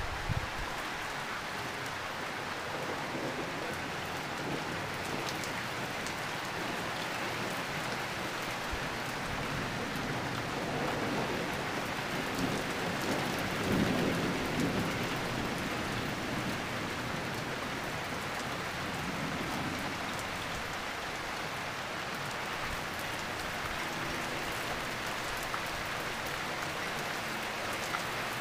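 Steady rain falling on a deck, leaves and pavement. A low rumble of thunder swells and fades about halfway through.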